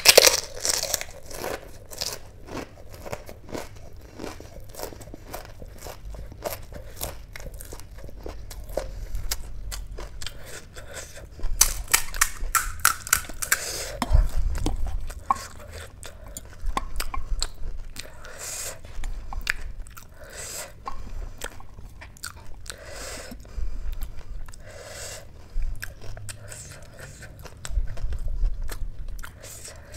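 Eating pani puri: crisp hollow puri shells crackling as they are broken open, and crunching and chewing in the mouth, in irregular clicks and crunches with louder clusters now and then.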